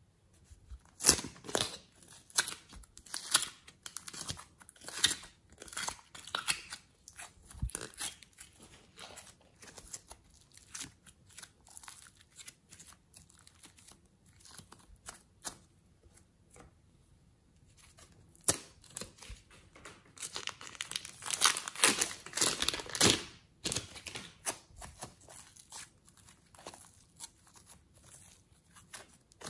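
Slime being pulled, stretched and squeezed by hand, giving a run of sticky crackles and peeling, tearing sounds. The crackles are densest about three-quarters of the way through.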